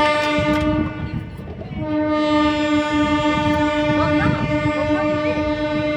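Train horn sounding a steady single-pitched blast that breaks off about a second in and starts again half a second later, held to the end, over the low rumble of the train.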